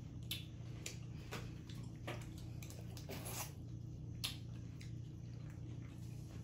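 Wet squishing and short crackling clicks as boiled crawfish are peeled by hand and food is dipped into sauce, a few separate clicks spread through, over a steady low hum.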